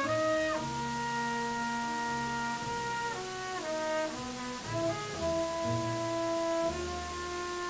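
Live jazz quintet playing, led by trumpet and saxophone holding long, sustained melody notes that change pitch every second or so, over piano and double bass.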